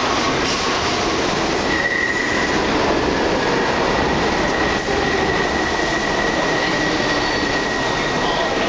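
Steady rumble and rail noise of New York subway trains in an underground station, with a thin, high, steady squeal-like tone from about two seconds in.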